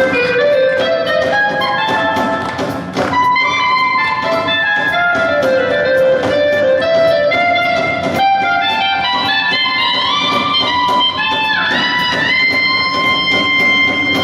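An instrumental ensemble playing a melodic piece over plucked-string accompaniment. Near the end several parts slide upward together into a long held chord.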